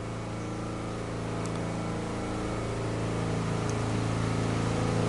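A steady, low engine drone that grows gradually louder.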